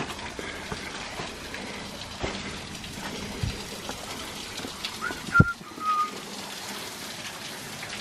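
Steady splashing hiss of a small waterfall's trickle among rocks, with scattered footsteps and scrapes of a hiker scrambling over sandstone. A sharp knock about five and a half seconds in, with a brief high squeak just before and after it.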